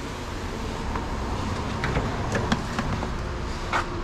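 Electric radiator cooling fan running steadily with the ignition switched on, a constant rumble with a faint hum. A few sharp clicks and knocks of handling in the second half.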